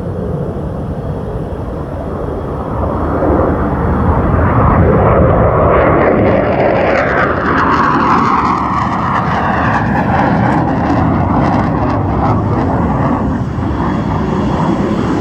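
Twin-engine F/A-18 fighter jet taking off, loud jet engine noise that builds over the first few seconds and stays loud, with a downward sweep in pitch as it passes.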